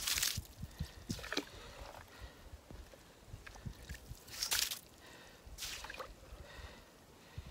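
Slush and water sloshing and splashing in an ice-fishing hole as it is skimmed clear with an ice skimmer and a tip-up is set down into it. There are several short splashy swishes, the loudest at the start and about four and a half seconds in.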